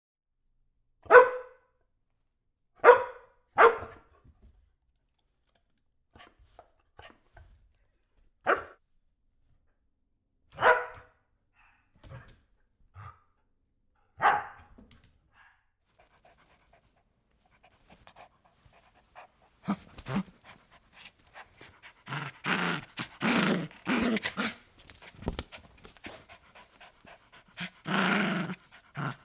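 A dog barking: single short barks spaced a few seconds apart, then, from about two-thirds of the way in, a denser run of rougher, breathier sounds.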